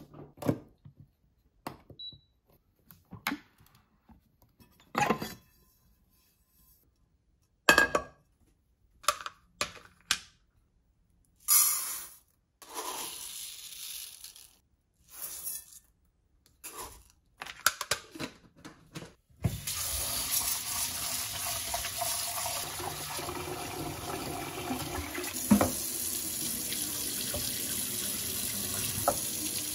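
Knocks and clicks from handling a rice cooker and its metal inner pot, then dry rice grains poured into the pot with a short rustling hiss. About two-thirds of the way in, a kitchen tap starts running steadily into a stainless steel sink and the pot as the rice is rinsed. One sharp knock stands out near the end.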